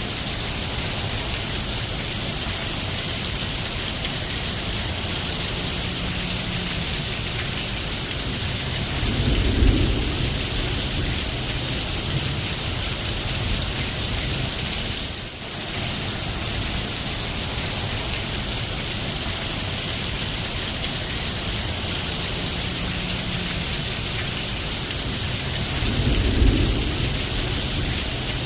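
Steady rain falling. A brief low rumble comes twice, about ten seconds in and again near the end.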